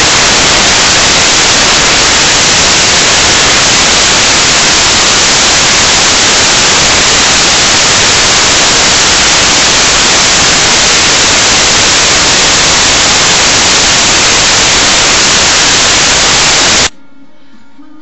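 Loud, steady white-noise static filling the audio track in place of any recorded sound, cutting off suddenly near the end to something much fainter.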